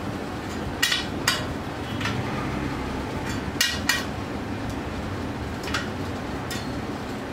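Light metallic clinks of small metal parts against the steel spokes and rim of a bicycle wheel as it is worked on by hand, about half a dozen irregular taps over a low steady hum.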